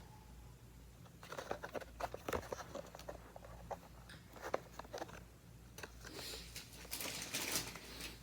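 Packaging of a model race car being handled and opened: scattered clicks and taps, then a longer rustling, crinkling stretch near the end that is the loudest part.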